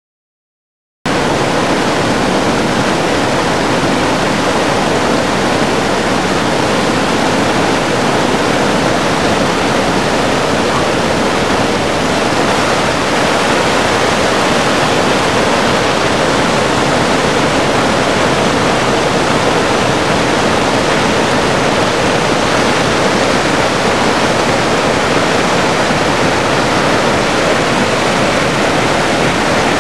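Falling water rushing steadily, as from a waterfall or weir, starting abruptly about a second in and holding an even, loud, hissing wash with no pauses.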